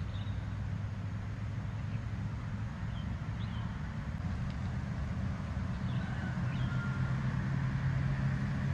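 Steady low engine hum with a few faint, short, high chirps.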